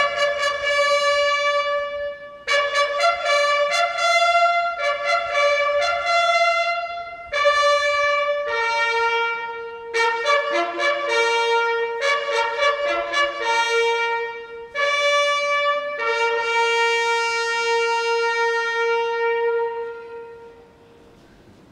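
Buglers sounding a bugle call in several phrases of notes with short breaks between them. It ends on one long held low note, which fades out about a second before the end.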